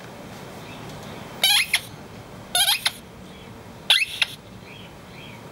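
A dog chewing a rubber squeaky toy ball, making it squeak three times about a second apart. Each squeak is a short, sharply rising squeal.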